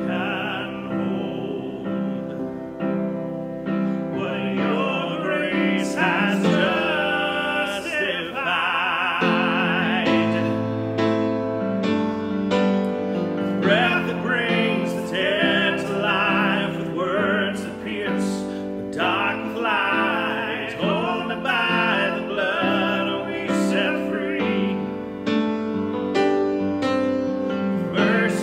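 A man singing a worship hymn with solo piano accompaniment, holding some notes with vibrato.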